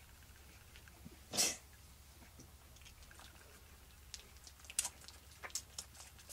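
Toggenburg goat kid suckling milk from a baby bottle, making short wet sucking clicks and smacks in the second half. About a second and a half in there is one short, sharp, breathy puff, which is the loudest sound.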